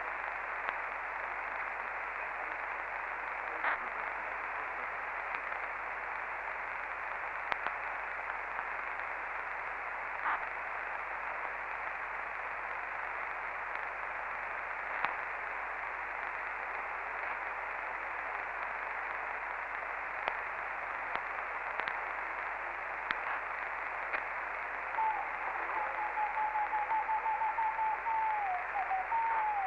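CB radio receiver on the 11-metre band (27.555 MHz) hissing with open-channel static, a steady band-limited noise with scattered faint clicks. About 25 s in, a steady whistling tone joins the hiss and wavers near the end.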